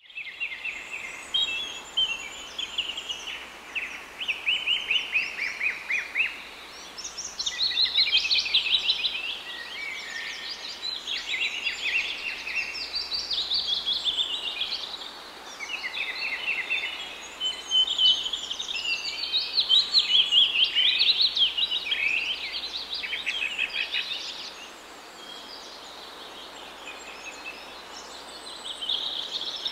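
Several birds singing and calling at once: overlapping fast trills and chirping phrases, with a quieter lull near the end.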